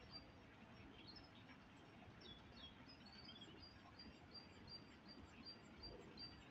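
Faint outdoor background with a small bird repeating one short, high note a few times a second, and a few quick falling chirps about two seconds in.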